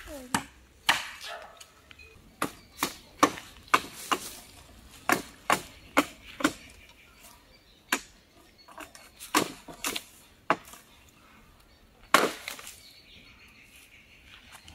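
Bamboo being chopped with a blade: sharp, uneven chops in short runs with pauses between them, and one longer, louder crack near the end.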